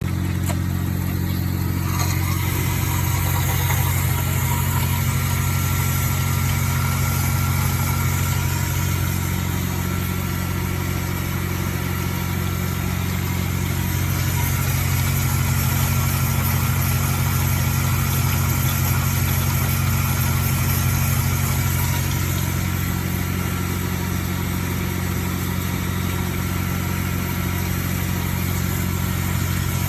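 Sodick A350 CNC wire EDM machine running: a steady low hum of its motors and pumps, with a slight shift in the sound about two seconds in.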